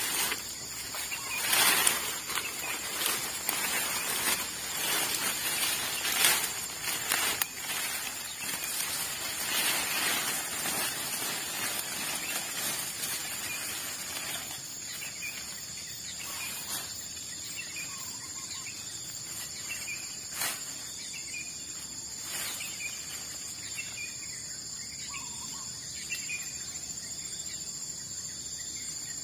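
Rustling and footsteps through dense fern undergrowth, busiest in the first half, over a steady high insect drone, with a few faint bird chirps later on.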